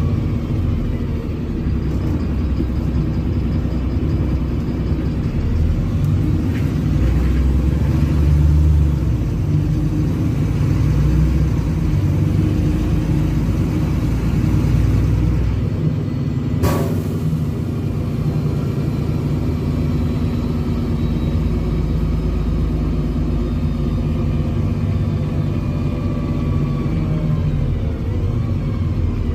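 Inside a NefAZ 5299 city bus under way: its Cummins ISBe diesel engine and Voith DIWA automatic gearbox running with a steady low rumble, and a fainter whine that rises and falls in pitch with road speed, dropping as the bus slows near the end. A single sharp click about halfway through.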